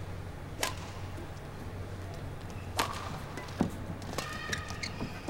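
Badminton rally: sharp racket strikes on a shuttlecock about two seconds apart, then shoes squeaking on the court near the end.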